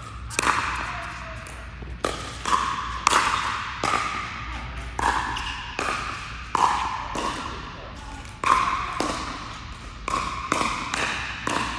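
Pickleball paddles hitting a hard plastic ball: repeated sharp pops about every half second to a second, each ringing briefly in a large indoor hall.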